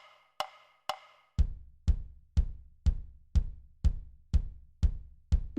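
Background music with a drum beat at about two hits a second. The first second or so is light, ringing ticks; from about a second and a half in, a deep kick drum lands on every beat.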